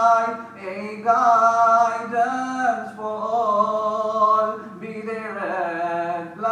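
A man singing a nasheed in long, drawn-out melodic phrases, holding and bending notes, over a steady low drone.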